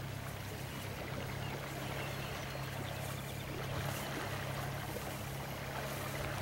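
A boat's engine running steadily with a constant low hum, with water and wind noise over it.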